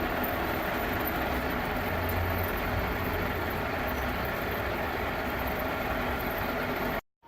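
Steady running noise of machine-shop machinery with a low hum. It cuts off abruptly near the end.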